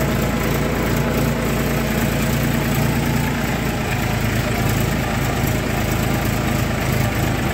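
Diesel engine of farm machinery running steadily at low revs, an even low hum with no change in pitch.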